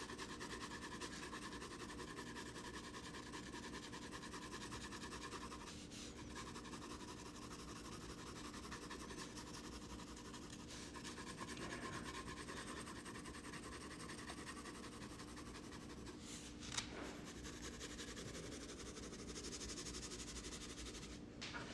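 Graphite pencil rubbed back and forth on sulphite paper to blend shading: a faint, steady soft scratching, with one small tap near the end.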